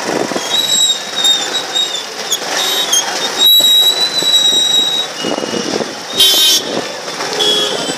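Busy street traffic heard from inside a slowly moving car: vehicle horns tooting, with one loud horn blast about six seconds in, over the general din of engines, voices and high thin squeaks.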